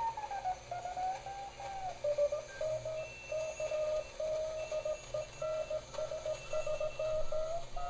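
Morse code (CW) signal received on a homebuilt two-tube regenerative shortwave receiver (1T4 regenerative detector, 3V4 audio stage), heard as a beat note. The tone slides down in pitch as the dial is tuned, then settles and keys on and off in dots and dashes at a steady pitch. A second, fainter, higher-pitched Morse signal keys in the background.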